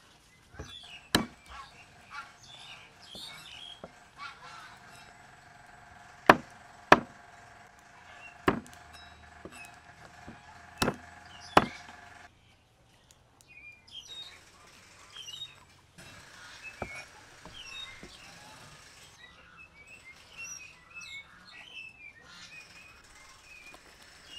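Knife chopping the toe tips off raw chicken feet on a wooden chopping board: single sharp chops a second or more apart, loudest and most frequent in the first half. Birds chirp in the background.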